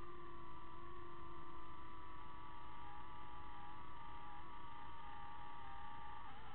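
Hubsan X4 quadcopter's small electric motors and propellers whining steadily, heard through its own onboard camera microphone. The pitch wavers slightly and dips briefly near the end.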